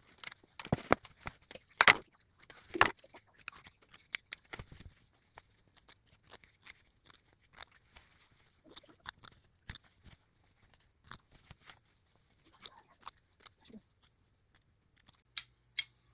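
Small scissors snipping through sweatpant knit fabric, trimming the excess close to a cover-stitched hem: scattered, irregular snips, the sharpest about two and three seconds in and a few more near the end.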